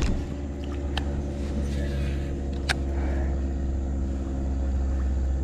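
Small motor on a fishing kayak running with a steady low hum and a few steady tones above it. A couple of brief sharp clicks about one second and nearly three seconds in.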